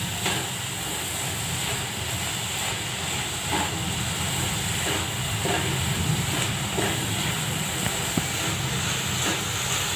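Grated coconut and jaggery syrup sizzling in a pan while a wooden spatula stirs and scrapes through it, over a steady hiss.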